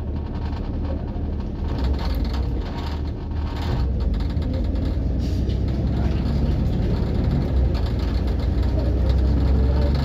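Bus engine running as heard on board, a steady low hum with scattered rattles and clicks; it grows louder toward the end as the engine works harder.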